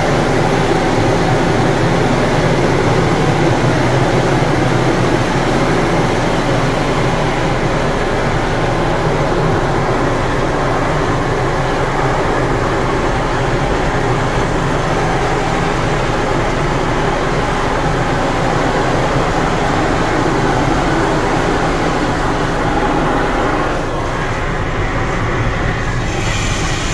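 Automatic car wash working over the car, heard from inside the cabin: water jets pounding on the windshield and body, and rotating brushes scrubbing, as one steady loud rush. It eases slightly near the end as the brushes sweep across the windshield.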